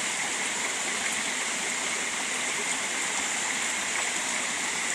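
Rocky mountain stream rushing over boulders: a steady, even water noise.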